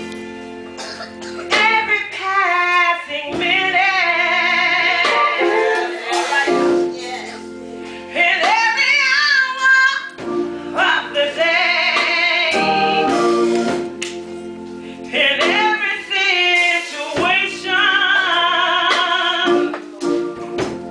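A woman singing a gospel solo through a microphone, her voice wavering with vibrato in phrases a few seconds long, over held organ chords.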